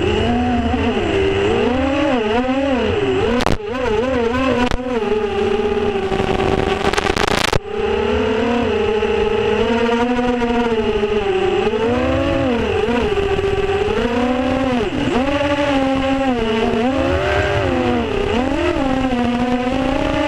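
FPV drone's electric motors and propellers whining, heard from its onboard camera, the pitch rising and falling constantly with the throttle. A few short crackles break in during the first half.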